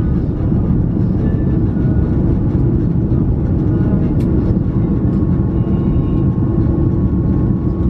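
Steady low rumble of an Airbus A330 heard from inside the passenger cabin: engine and airflow noise, with a faint thin whine above it and one small click about four seconds in.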